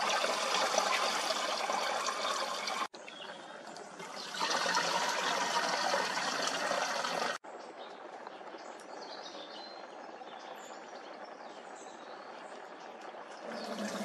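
Ladle of hot laurel-berry oil and water poured through a strainer into a plastic bucket, splashing and trickling. There are two louder bouts of pouring, about three seconds each, then a quieter, steady watery sound.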